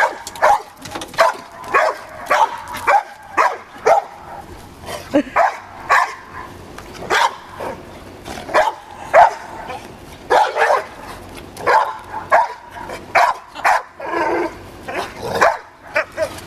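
Dogs barking in play, short sharp barks coming about once or twice a second, loud and in a steady string.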